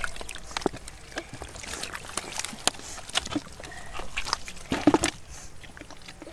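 Wet mud squelching and muddy water sloshing as a hand gropes around inside a flooded hole, with many small clicks and one louder squelch a little before the five-second mark.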